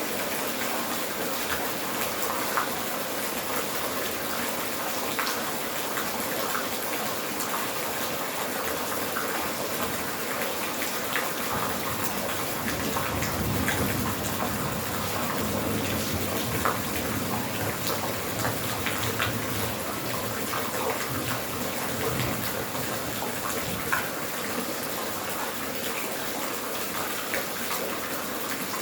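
Steady rain falling, a continuous hiss with scattered individual drops ticking through it, growing a little fuller and deeper about halfway through.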